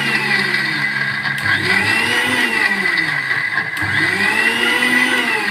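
Electric kitchen mixer-grinder running steadily, its motor pitch swelling and falling about every two seconds as it grinds cooked pumpkin, ginger and peanuts into a fine puree for soup.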